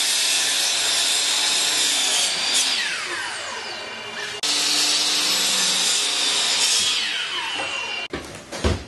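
Ridgid compound miter saw spinning up and cutting through a wooden board, then winding down with a falling whine, twice. Near the end come a few sharp knocks.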